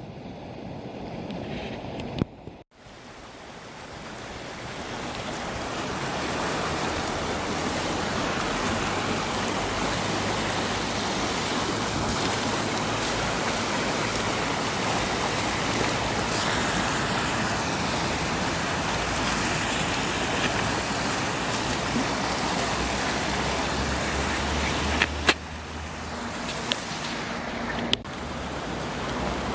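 Steady rush of flowing river water, swelling in over the first few seconds after a brief dropout and then holding even. A couple of sharp clicks come near the end.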